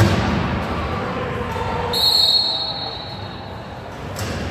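Wheelchair rugby play in a gym: a sharp knock at the start, then a ball bouncing on the court floor and players' voices. A short high tone sounds about two seconds in.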